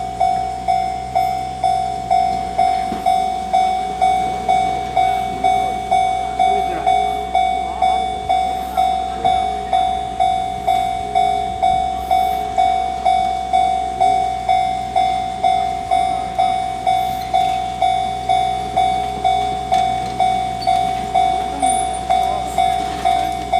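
Railway level-crossing warning bell ringing on and on, about two strikes a second. Each strike is a single tone that fades quickly. It is the alarm that the crossing is closed.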